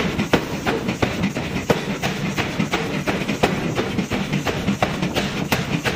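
Power forging hammer striking a red-hot steel billet on its anvil die: a rapid, even run of heavy blows at about three a second, over steady machine noise.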